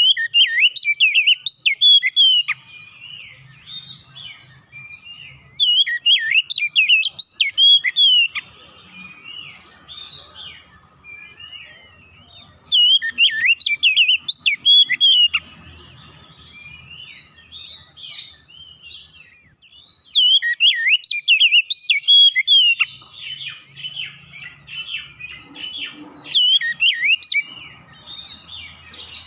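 Oriental magpie-robin singing a loud, rich song of quick, varied whistles. It comes in bursts of two or three seconds, about five of them, with softer chirping in between.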